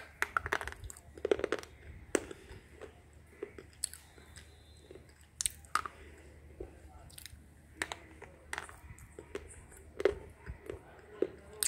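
A white slate pencil bitten and chewed, giving a run of crisp, irregular crunches as the soft stone breaks up between the teeth. The crunches are densest in the first second or so, just after the bite.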